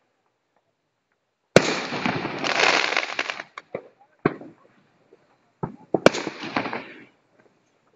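Aerial firework shells bursting. A sharp bang comes about a second and a half in and is followed by about two seconds of dense crackling. A few single pops follow, then another bang with about a second of crackle near the end.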